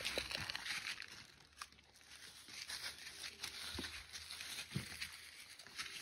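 Goats browsing in dense shrubs: faint rustling, crackling and tearing of leaves and twigs as they pull at the foliage, with a few soft low thumps.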